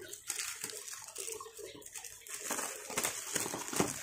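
Clear plastic shrink-wrap film crinkling and crackling as it is pulled off a cardboard box.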